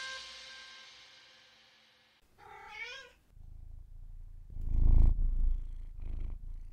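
The last notes of music die away, then a cat meows once, a little over two seconds in, and goes on to purr in a low, pulsing rumble that is loudest near the middle.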